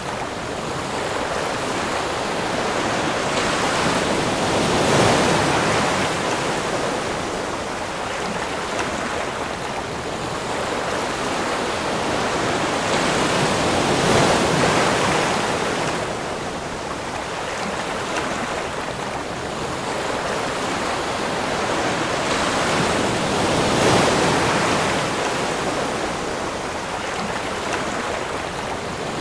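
Ocean surf: waves breaking and washing in a steady wash of water noise that swells to a louder surge roughly every nine to ten seconds, three times.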